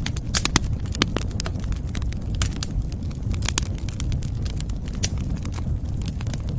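Wood fire in a fireplace crackling, with sharp pops and snaps every fraction of a second to a second over a steady low rumble of flames.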